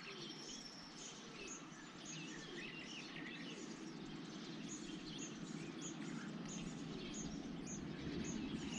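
Birds chirping and calling, with short high chirps repeating about twice a second and warbling calls mixed in, over a steady low rushing noise that grows louder toward the end.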